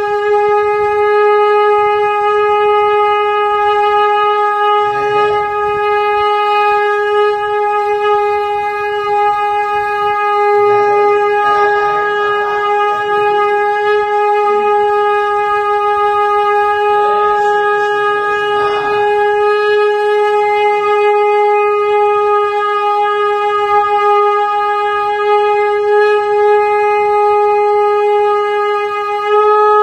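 Conch shell (shankha) blown in one long, unbroken steady note, held on without any pause for breath.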